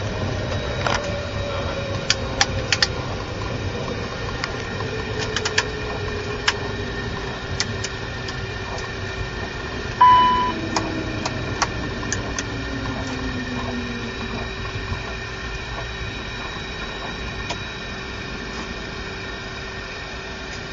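Jet cockpit noise during the landing rollout: a steady hum with an engine whine that falls slowly as the engines wind down, scattered clicks, and a short sharp beep about ten seconds in.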